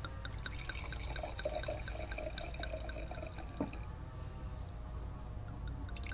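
Wine poured from a glass bottle into a wine glass, glugging quickly and evenly, with a single click a little past halfway.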